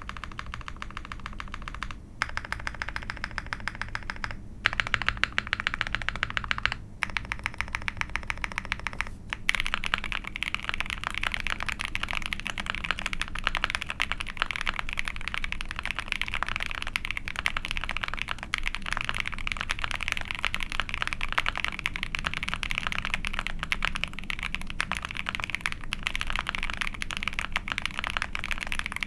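Fast typing on a mechanical keyboard with lubed Ice Candy linear switches, a POM plate and GMK keycaps: a dense run of key clacks. A few short runs of keystrokes at first, then steady fast typing from about ten seconds in.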